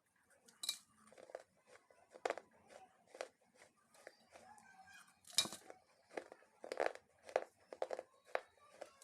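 Crisp crunching heard up close, in about a dozen short, irregular bursts, the loudest a little past halfway.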